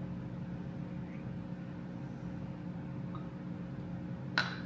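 Steady low hum of room tone, with one brief sharp sound about four seconds in.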